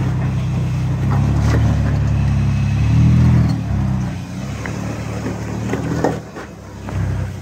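Toyota Tacoma rock crawler's engine running low and steady under load as it climbs over boulders. The revs rise to their loudest about three seconds in, then ease off and pick up again near the end. A few short sharp knocks sound, typical of tyres and chassis striking rock.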